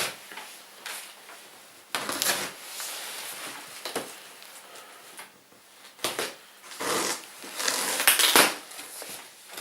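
A cardboard box being handled and opened: uneven rustling and scraping of cardboard, loudest a little after halfway and again near the end.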